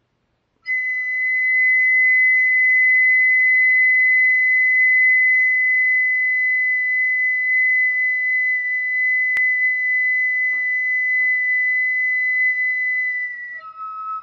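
A single long, steady whistle-like note, as from a flute or clay whistle, held for about thirteen seconds before stepping down to a lower note near the end.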